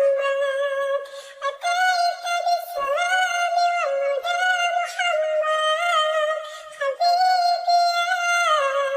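A high-pitched, synthetic-sounding singing voice carrying a melody of long held notes that step up and down.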